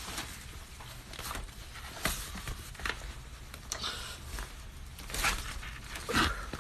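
Rustling and handling noises: short swishes, scrapes and a few soft knocks of things being moved about, louder about two, five and six seconds in.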